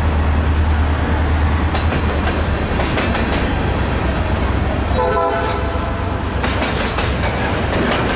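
Freight train cars rolling past at close range, covered hoppers and loaded centerbeam lumber flatcars: a steady rumble with the clatter of wheels over rail joints. About five seconds in, a train horn sounds briefly for about a second.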